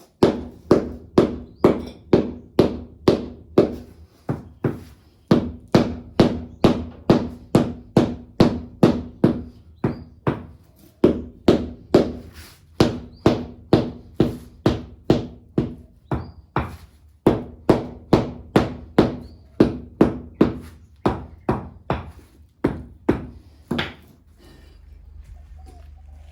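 A long run of regular thuds, about two a second, each ringing briefly over a steady low tone, with a few short pauses, stopping about two seconds before the end.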